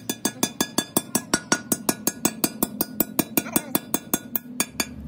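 Rapid, even metallic clicking, about seven strokes a second, as the inside of a cast-iron truck differential housing is scrubbed by hand. The clicking stops near the end and a steady low hum takes over.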